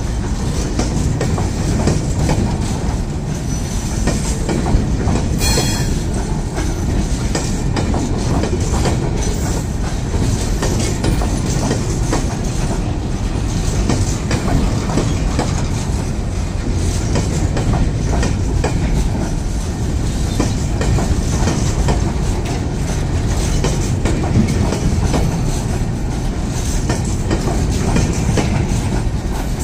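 Freight train wagons rolling past on the track at close range, with a steady rumble and a run of wheel clicks.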